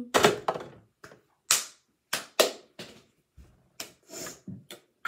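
Hands patting and slapping together: about a dozen sharp smacks at uneven spacing.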